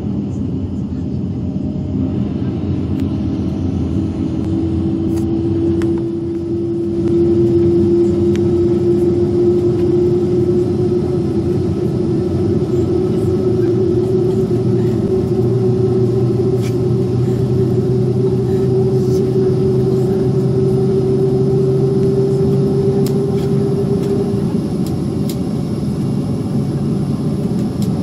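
Boeing 737 jet engines, heard from inside the cabin, running up to takeoff power while the brakes hold the aircraft still: a loud steady rumble that steps up about seven seconds in, with a tone that slowly rises in pitch over some twenty seconds.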